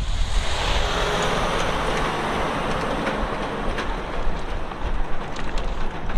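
Semi-truck tractor without a trailer passing and driving off down the road, its engine and tyre noise easing as it goes, with wind on the microphone.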